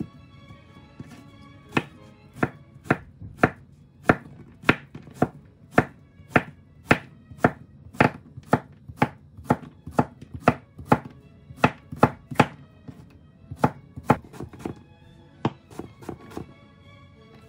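Chef's knife chopping zucchini on a wooden cutting board: the blade knocks sharply on the board with each cut, in a steady run of about two strokes a second that thins out near the end.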